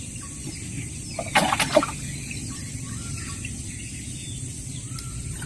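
Outdoor riverside ambience: faint bird chirps and a steady high insect whine over a low rumble, with a brief louder rustle or knock about a second and a half in.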